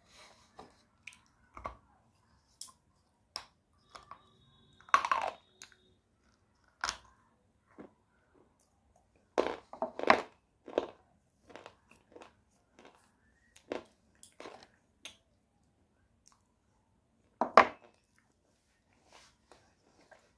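Hard white clay bar being bitten and chewed close to a microphone: scattered sharp crunches and clicks, loudest about five, ten and seventeen seconds in, with softer chewing clicks between.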